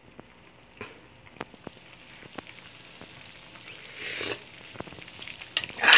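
Squid broth simmering in a metal wok, with a metal spoon clinking against the pan as it is stirred. Two louder hissing bursts come about four seconds in and near the end.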